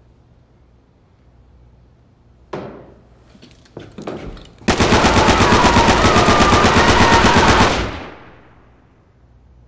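A few sharp knocks, then a loud, sustained burst of automatic machine-gun fire lasting about three seconds that cuts off and fades. A thin, steady, high-pitched ringing tone carries on after the burst.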